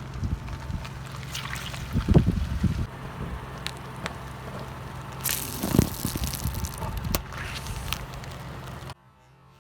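A car tyre rolls over a soft, wet object and squashes it, with squelching and sloshing over a steady low hum. There is a sharp burst about five seconds in. The sound cuts off shortly before the end.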